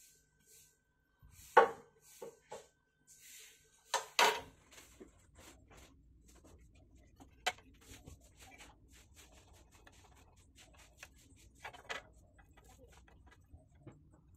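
Handling noises of a circuit board and tools on a hard tabletop: sharp knocks and clicks, the loudest about a second and a half in and a pair about four seconds in, with lighter taps and scrapes between them.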